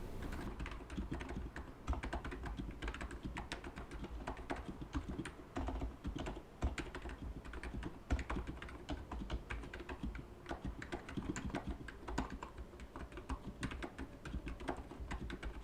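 Steady, fast typing on a Plum NiZ 87 electro-capacitive (Topre-style rubber dome) keyboard with light 35 g domes and POM keycaps, a "sha sha sha" sound rather than a click or clack. The keystrokes are fairly faint.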